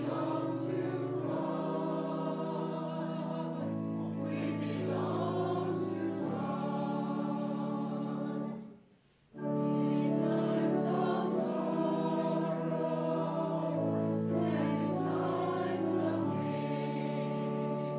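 Voices singing a hymn together with musical accompaniment, in long held chords. The music breaks off for a moment about nine seconds in, between phrases, then carries on.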